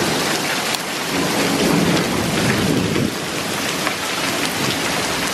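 Heavy rain and hail pouring down, a dense steady hiss of drops and hailstones striking with scattered sharper hits. A low rumble rises from about one second in and fades about three seconds in.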